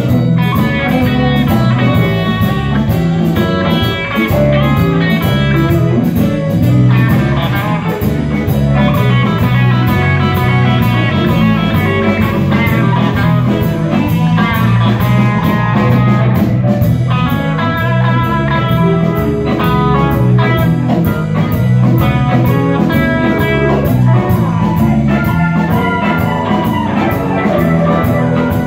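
Live band playing loudly: electric guitar over a drum kit keeping a steady beat.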